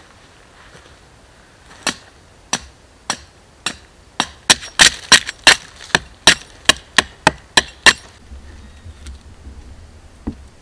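About sixteen sharp chopping strokes of a blade biting into a resin-soaked pine stump to cut out fatwood. They start slow and speed up to about three a second, then stop.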